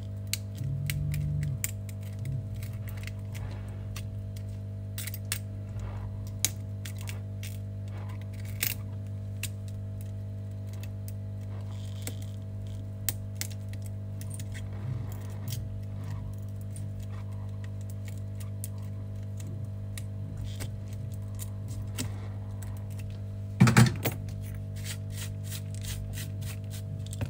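Shattered back glass being picked and scraped off an iPhone 12 mini's frame with a metal tool: scattered small clicks and ticks of glass fragments, with a louder clatter of strikes near the end, over a steady low hum.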